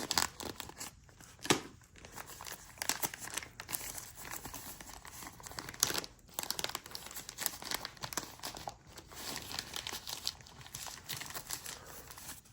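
Tightly wrapped packaging being cut and torn open with a butter knife: irregular crinkling and tearing, with a few sharper snaps.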